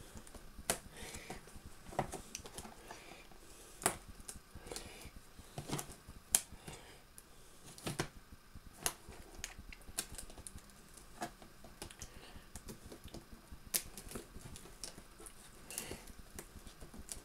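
Kitchen knife and fingers working at the tape on a cardboard box: scattered sharp clicks and taps at irregular intervals, with a few short scratchy rasps of the blade on tape and card.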